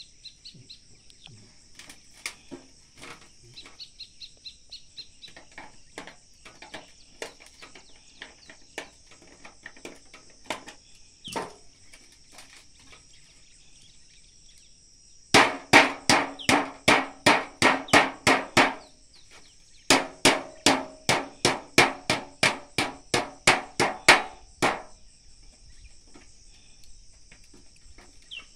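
Hammer blows struck in quick, even runs of about three to four a second, two runs of several seconds past the middle, with lighter scattered taps before them. A steady high insect drone runs underneath.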